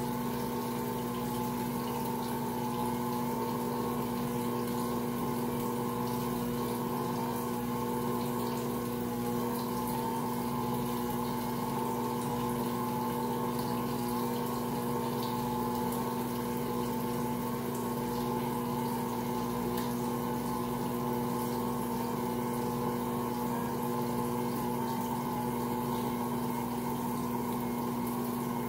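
Ankarsrum stand mixer running steadily while kneading a large batch of bread dough: a constant motor hum with a slightly wavering higher whine.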